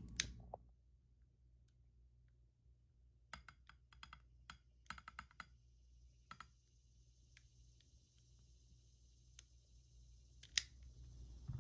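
Long-nosed utility lighter clicked repeatedly, a scatter of quick dry clicks, then a faint steady hiss of gas while its flame lights the wicks of a three-wick jar candle; a sharper single click comes near the end.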